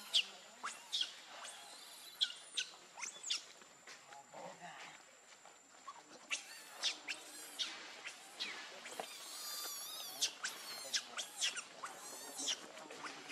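Baby pig-tailed macaque giving many short, high-pitched squeaks and squeals in quick series, crowding together in the second half.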